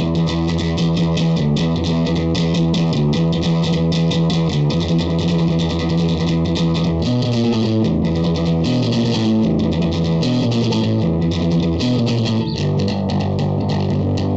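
Fender Jazz Bass (1962 reissue) played through an Orange Terror Bass 1000 hybrid valve/solid-state amp with the gain cranked: a fast, heavily distorted bass riff of rapidly repeated picked notes, shifting pitch about seven seconds in and again near twelve seconds.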